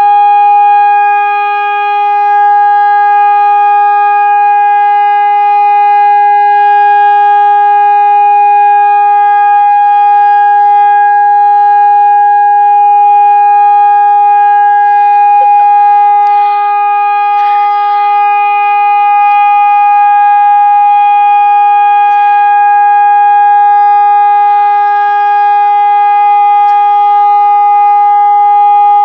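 Hörmann ECN electronic warning siren sounding the all-clear: one loud, steady, unbroken tone.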